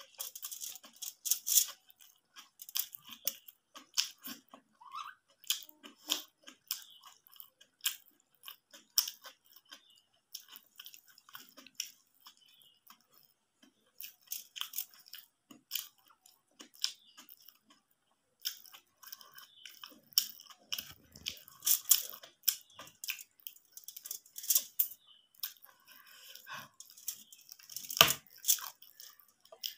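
Close-miked eating by hand: wet chewing and crunching of egg curry with rice, with fingers mixing food on a steel plate. Irregular sharp clicks and smacks, the loudest near the end.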